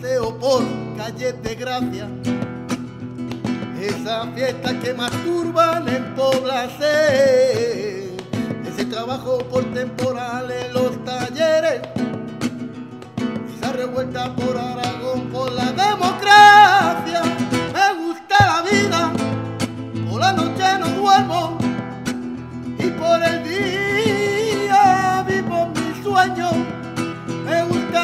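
A man singing a Latin song to a strummed acoustic guitar, played live. The music drops out briefly about eighteen seconds in, then carries on.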